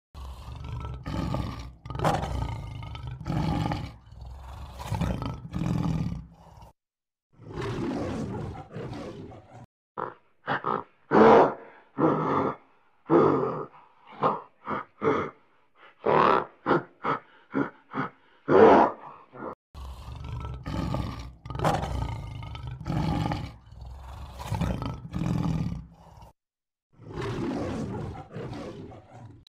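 Large animals calling in a run of separate clips: series of short, deep calls repeated about once a second, with brief silences between the clips.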